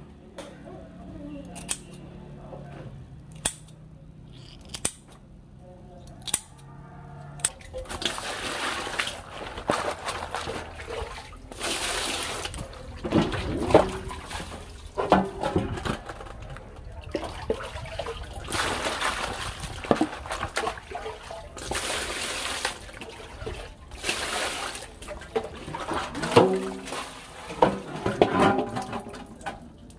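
Sharp clicks about every second and a half, then from about seven seconds in, water sloshing and splashing in irregular surges.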